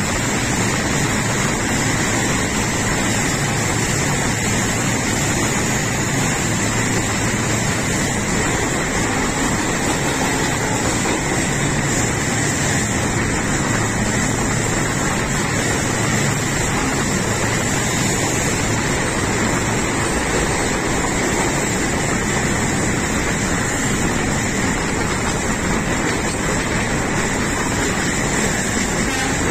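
Steady running noise of a train on the move, a constant rumble mixed with wind rushing past the microphone held out beside the carriage, unchanging throughout.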